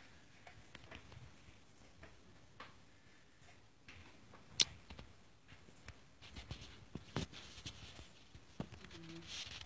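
Faint scattered taps and rustles of a cat's paws batting at a phone held up to it, with one sharp click just under five seconds in and a quick run of taps a couple of seconds later.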